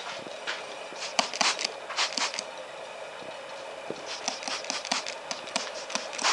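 Pressurised air escaping from the rear cylinder of a Yamaha GP1200R three-cylinder two-stroke engine during a leak-down test, sizzling with irregular crackles that are busiest about a second in and again around four to five seconds in. The leak shows the rear cylinder cannot hold pressure, which the owner takes for the reason it ran lean.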